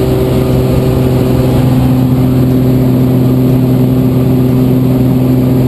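Small plane's engine and propeller droning steadily, heard from inside the cabin, with a constant rush of air.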